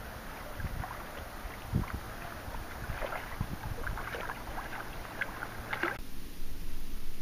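Underwater water noise: a low, rumbling hiss with many scattered small clicks and crackles. The higher crackling drops away abruptly about six seconds in.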